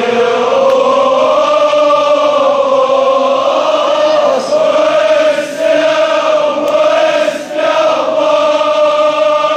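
Large crowd of men chanting a Kashmiri marsiya lament in unison, in long drawn-out notes that glide slowly in pitch, breaking off briefly a few times for breath.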